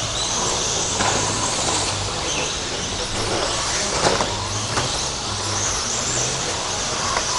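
Several electric RC stadium trucks of the 13.5-turn brushless motor class racing, their motors whining high, rising and falling as they speed up and slow down. A couple of short knocks about four seconds in.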